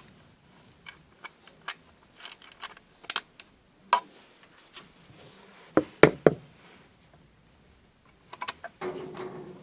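Scattered clicks and light metallic knocks of a bolt being unscrewed by hand from a car's rear-seat headrest fitting, with a few louder knocks about six seconds in.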